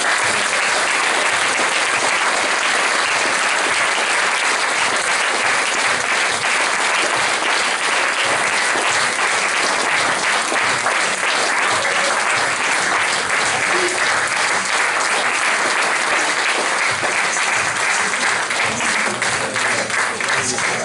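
Audience applauding steadily, with individual claps standing out more near the end.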